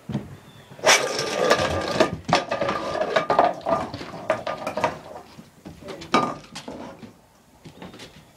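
A dog's dish clattering and scraping as a dog noses and knocks it across the floor, a dense run of knocks for several seconds, then a single knock and it goes quieter.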